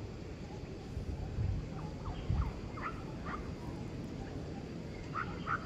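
Short, high, squeaky animal chirps come in a loose scatter in the middle and a quick cluster near the end. They sit over a steady low rumble, with two dull thumps in the first half.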